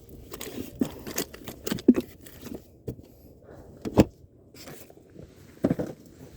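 Irregular knocks, clicks and scrapes of things being handled, with sharper knocks about two seconds in, about four seconds in and again near the end.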